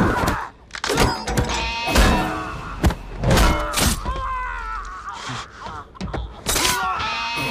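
Hand-to-hand fight: men grunting, groaning and crying out in pain between heavy blows and thuds.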